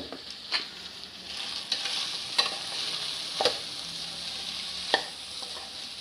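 Cooked rice sizzling in hot oil with its tempering of ajwain, garlic and chillies while a spoon stirs it, the spoon knocking against the metal pan about five times. This is the rice being fried through with the tempering and salt.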